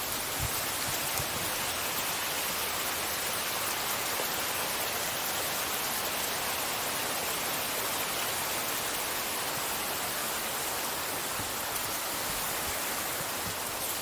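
Steady, even hiss of running water.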